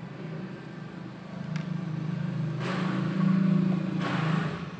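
A motor vehicle's engine hum that grows louder, peaks near the end and then drops away, as of a vehicle passing by.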